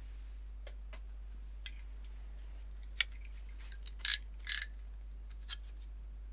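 Scattered light clicks and two short clattering rattles a little past the middle, the loudest sounds, from a clear plastic ruler and hand tools being handled and laid on a plastic cutting mat.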